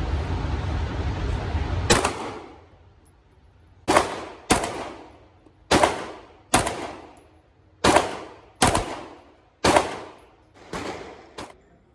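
About ten gunshots from a single gun, fired mostly in quick pairs, each followed by a ringing echo. A steady rushing noise runs for the first two seconds and stops at the first shot.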